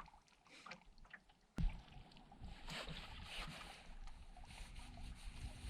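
Small boat on the water: a sudden knock about a second and a half in, then a steady low motor hum with water washing and splashing against the hull.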